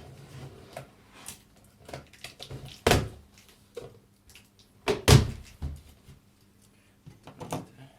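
Large cardboard box being cut and opened by hand: scattered scrapes and rustles of the cardboard, with two loud thuds about three and five seconds in.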